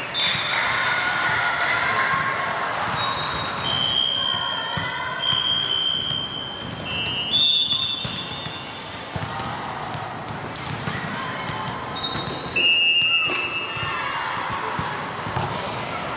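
Volleyball-hall din: players and spectators calling out, volleyballs thudding, and several short whistle blasts at slightly different pitches, about a second or less each, the longest about a third of the way in.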